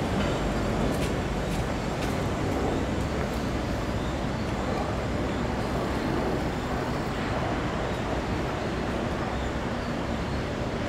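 Steady city street traffic noise, with an articulated electric tram rolling along its street rails.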